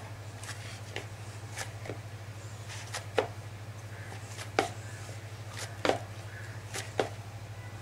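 Hands kneading a stiff flour dough in a plastic bowl: irregular soft knocks as the dough is pressed and pushed against the bowl, with sharper knocks about every second or so in the second half.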